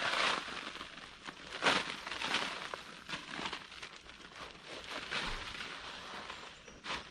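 Irregular rustling and crunching as landscaping material is handled, with a sharper crunch about one and a half seconds in and another near the end.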